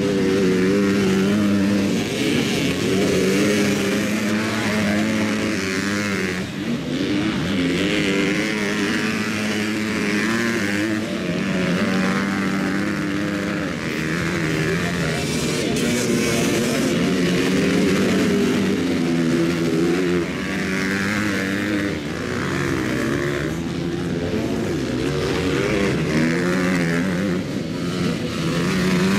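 Several motocross bikes racing, their engines revving up and down over and over as they take a jump, with more than one bike heard at once.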